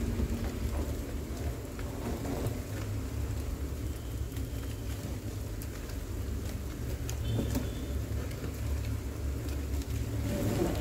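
Outdoor ambient noise dominated by a steady low rumble, with a few faint scattered clicks.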